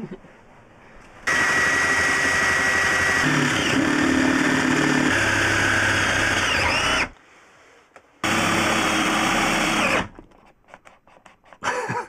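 Cordless drill boring through a timber frame rail with a twist bit, in two runs: a long run of about six seconds whose pitch shifts twice as the load changes, then, after a second's pause, a shorter run of about two seconds.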